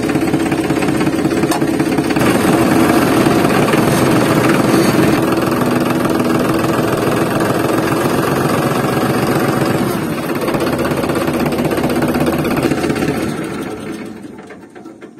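An engine running steadily with a rhythmic chug, like a tractor engine at idle. It gets a little louder about two seconds in and fades away over the last two seconds.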